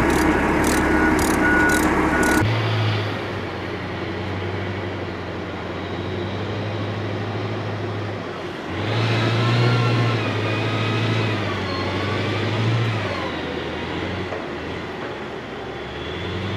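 For the first couple of seconds a vehicle's backup alarm beeps over a running engine. Then comes the steady low drone of a military armored vehicle's engine as it drives, heard from its open hatch, with a wavering whine swelling up about halfway through.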